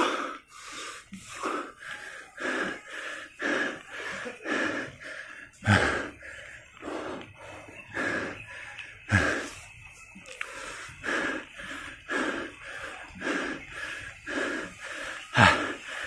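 A cyclist's heavy, laboured breathing, about one hard breath a second, from the effort of pedalling a mountain bike up a steep climb. Three of the exhales, about six, nine and fifteen seconds in, are louder.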